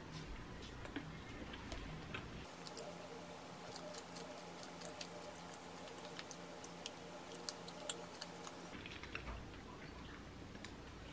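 A person eating a chewy glutinous-rice pastry: soft, irregularly spaced mouth clicks and smacks of chewing. A faint steady hum runs through the middle and stops near the end.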